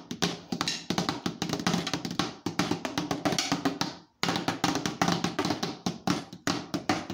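Drumsticks playing a fast tenor-drum practice pattern on the pads of an old electronic drum kit whose electronics don't work, so only the sharp taps of stick on pad are heard. The strokes come in a dense run, with a short break about four seconds in before the playing resumes.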